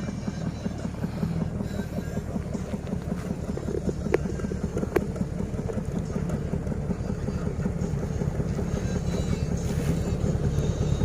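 An engine running steadily with a fast low pulse, growing a little louder toward the end; two sharp clicks about four and five seconds in.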